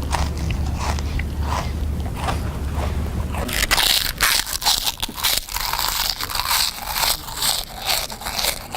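Loud, close-up chewing and crunching of food, a rhythm of open-mouthed bites and chews a few times a second, deliberately noisy. It turns much louder and crunchier about three and a half seconds in.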